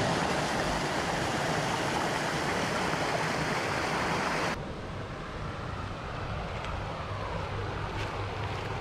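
Creek water rushing over a small rocky cascade, a loud steady rush. About four and a half seconds in it drops abruptly to the quieter sound of the stream flowing.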